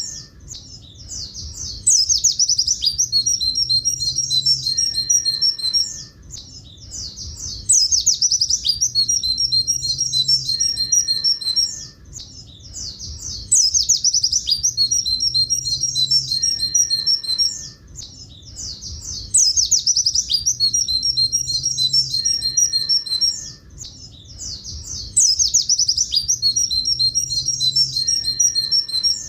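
A pleci buxtoni white-eye singing a long, fast, high twittering song of repeated 'tulit tulit' notes. The same phrase comes round about every six seconds, with a short quieter spell between.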